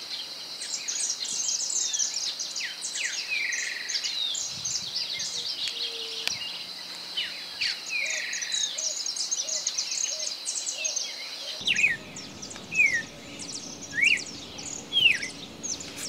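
A chorus of small birds chirping and singing over a steady high insect buzz. About three-quarters of the way through the buzz cuts off and a bird repeats a short sliding whistled note roughly once a second.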